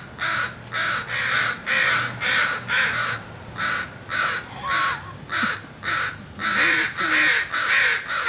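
Crows cawing over and over, about two caws a second without a break: the alarm calls of parent crows defending their young.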